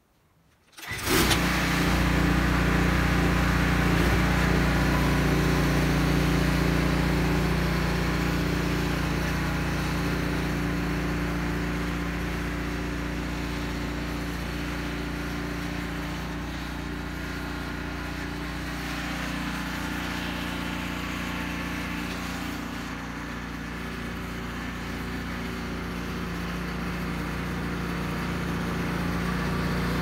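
Cub Cadet 3X 30 HD snow blower engine running steadily under load while clearing and throwing snow. The sound cuts in abruptly about a second in, fades as the machine moves away, and grows louder again near the end as it comes back.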